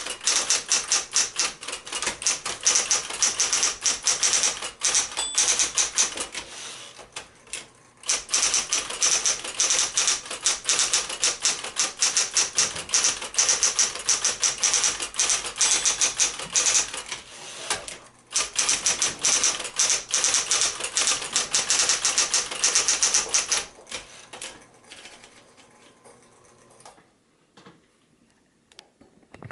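Smith-Corona Coronet 10 electric portable typewriter typing at speed, a dense run of key strikes broken by two short pauses, with the motor humming underneath. The typing stops about three-quarters of the way through and the sound dies away to near silence toward the end.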